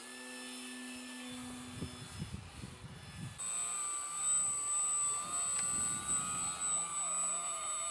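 Electric motor and propeller of a foam Nutball RC plane whining under power, the pitch wavering as the throttle changes. About three seconds in it gets much louder, with a strong high whine, as the plane hangs nose-up close by under high throttle.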